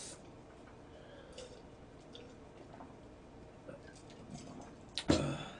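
A man drinking from a can: faint swallowing and small clicks. Near the end comes one short, sudden, louder noise.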